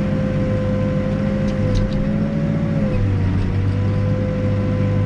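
Backhoe diesel engine running steadily under digging work, with a steady whine over the drone; the engine note shifts slightly about three seconds in.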